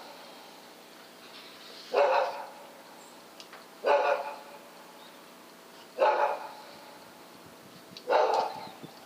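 A dog barking, single barks about every two seconds, four in all.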